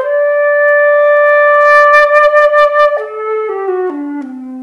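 Background music: a single wind-instrument melody holds one long note, then steps down through several lower notes from about three seconds in.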